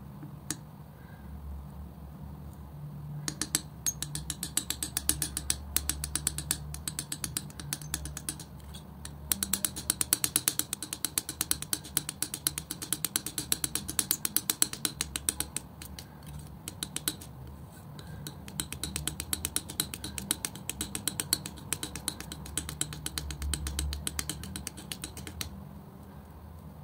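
Steel palette knife mixing and spreading thick acrylic paint on paper: rapid wet clicks as the blade presses into the sticky paint and lifts off, in runs that start a few seconds in, pause briefly twice, and stop near the end. A steady low hum underlies it.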